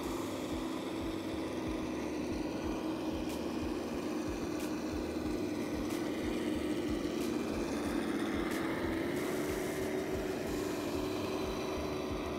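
Axial SCX10 scale crawler's electric motor and gearbox whining steadily as it drives, the pitch stepping up a little about three quarters of the way through as it speeds up. A few sharp ticks are scattered through.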